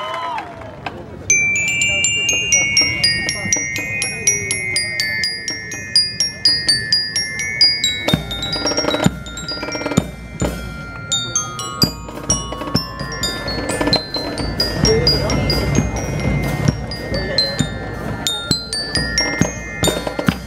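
Marching-band bell lyre (glockenspiel) playing a quick melody of struck, ringing notes. From about eight seconds in, drum hits join the lyre.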